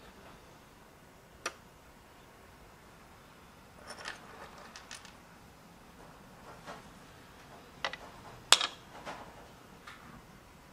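Tiny plastic and glass miniature bottles and food pieces being picked up and set down on a wooden floor, giving scattered light clicks and clinks. The sharpest click comes about eight and a half seconds in.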